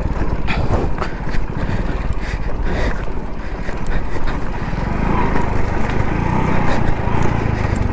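Hero Splendor motorcycle's single-cylinder four-stroke engine running at low revs on a rough off-road trail, with scattered knocks from the bike jolting over stones.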